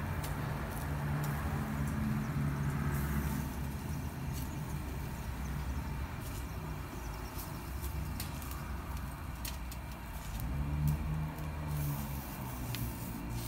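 Steady low hum of a commercial gas-fired yakitori grill running, with faint scattered crackles from the chicken skewers cooking over the burners.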